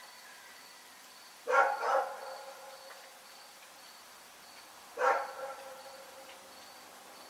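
A dog barking in short outbursts: two barks in quick succession about a second and a half in, then a single bark about five seconds in.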